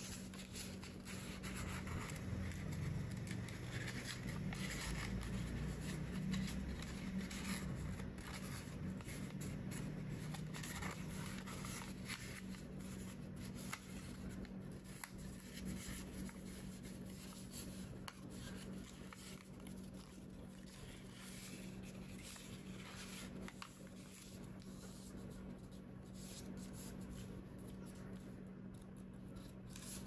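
Origami paper being folded and creased by hand on a tabletop: soft rustling, scraping and small crinkly clicks as the folds are pressed down, over a faint steady low hum.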